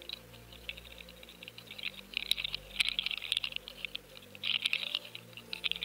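Dense crackling and fine clicking picked up through a submerged underwater fishing camera, thickening into busier clusters about two seconds in and again near the end.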